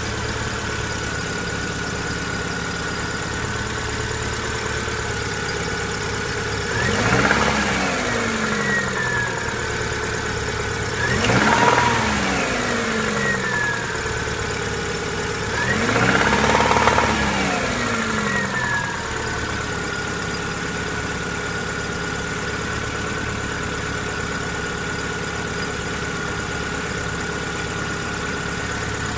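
1999 Subaru Impreza's EJ22 flat-four engine idling with a knock, revved briefly three times, each rev rising and falling back to idle. The knock gets louder as the revs climb, which the owner suspects may be rod knock.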